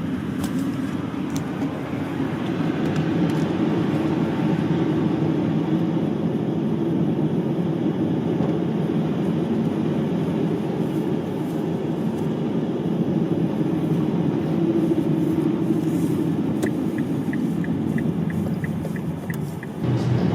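A steady, loud low rumble with no speech, with a run of faint, evenly spaced ticks at about three a second near the end.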